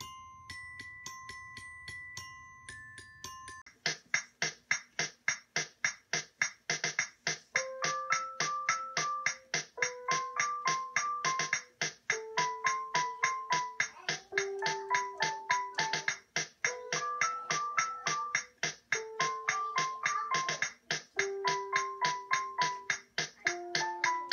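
Background music: soft, chiming bell-like notes at first, then, about four seconds in, a louder, bright keyboard tune with quick, even notes and a short melody that repeats.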